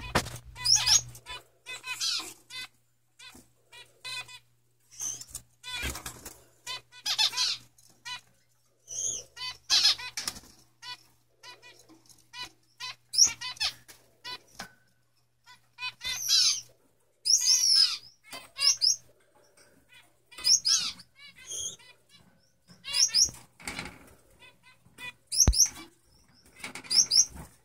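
Male Gouldian finches calling and singing: short bouts of rapid high chirps and buzzy trills, repeated throughout, with some wing fluttering among them.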